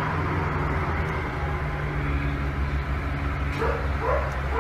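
A dog gives a couple of short rising yips or whines near the end, over a steady low hum.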